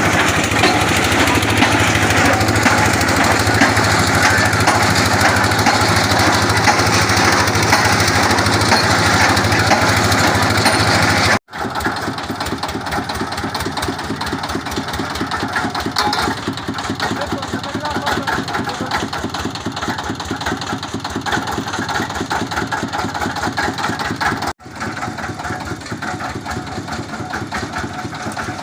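Engine-driven water well boring machine running steadily, a loud dense machine noise with a fast even pounding beat. It breaks off for an instant twice and comes back a little quieter each time.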